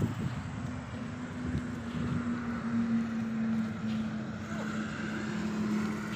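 A steady motor or engine hum, with a knock right at the start.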